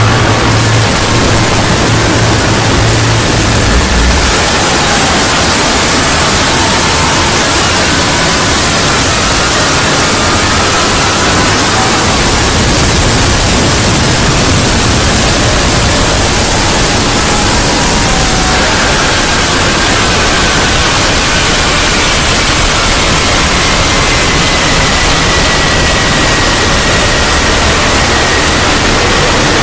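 A loud, dense wash of hiss-like noise from a sound effect stacked hundreds of times over and distorted, with faint wavering pitches barely showing through. A low hum under it fades out about four seconds in.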